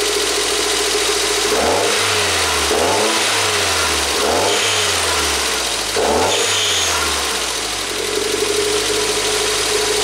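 1992 Toyota MR2's 2.0-litre turbo four-cylinder engine running. Its speed jumps up and sinks back four times in the first seven seconds or so, then it settles to a steady idle.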